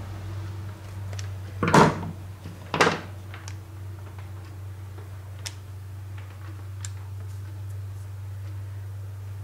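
Plastic chainsaw air filter parts and a screwdriver being handled at a workbench: two short, loud scuffing handling noises about two and three seconds in, then a few light clicks, over a steady low hum.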